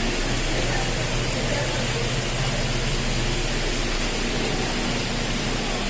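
Steady rushing background noise of an indoor rainforest exhibit hall, an even hiss with a faint low hum under it.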